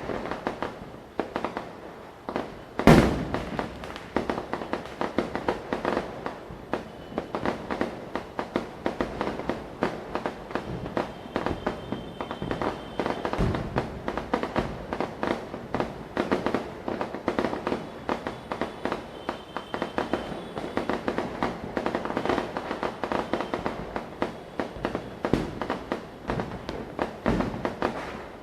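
Diwali firecrackers going off in a dense, continuous rattle of small cracks and pops, with one much louder bang about three seconds in.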